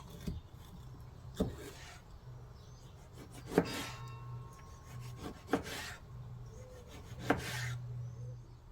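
Five sharp knocks spaced a second or two apart, each with a short scrape, over a faint steady hum: objects being handled and set down on a hard surface.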